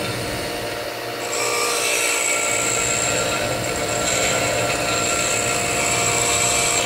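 DeWalt DW758 bench grinder running as a high-speed steel lathe tool bit is ground against its grey wheel, a steady high grinding hiss starting about a second in. The steel is being rounded to a small nose radius for a finishing tool.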